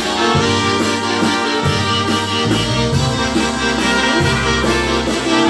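Polka band playing live without vocals: accordion and brass over a moving bass line, with a steady cymbal beat.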